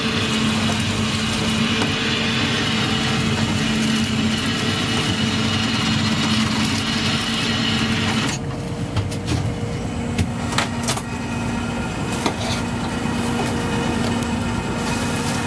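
Boat engine and powered net hauler running with a steady humming drone as a gillnet is drawn in over the roller, under a broad hiss. About eight seconds in the hiss cuts off suddenly, and a few sharp knocks follow over the continuing hum.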